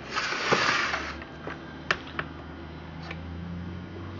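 Handling noise from the chainsaw being moved on the bench: a rustling scrape about a second long, then a few light clicks and knocks.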